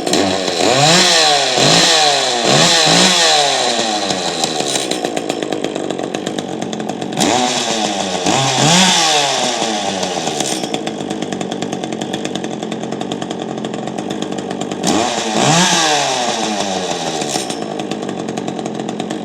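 Echo two-stroke chainsaw engine running with its bar and chain off, idling between three spells of throttle blips that send the pitch up and down, then cutting off suddenly at the end. The saw had been free and untouched; it runs after only fuel, primer bulb and choke.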